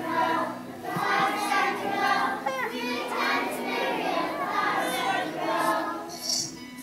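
A group of preschool children singing an action song together.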